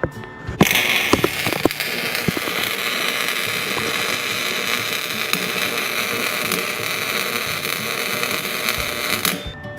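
Electric arc welding: the arc strikes with a few sharp crackles, then runs as a steady crackling hiss for about eight and a half seconds and cuts off suddenly near the end as the bead is finished.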